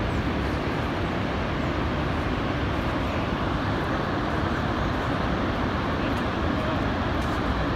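Steady, even rushing of the Iguaçu Falls, a constant noise without breaks or separate events.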